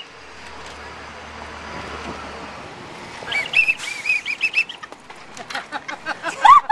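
A whistle blown in a run of short tweets about halfway through, then a quicker series of short squeaky toots that rise and fall in pitch, getting louder near the end.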